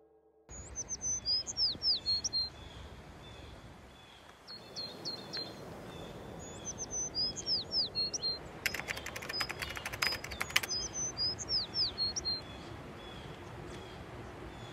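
A songbird singing outdoors, repeating the same short phrase of high chirps and quick falling whistles about four times, over a steady rural background hiss. A rapid run of sharp clicks comes about two-thirds of the way through.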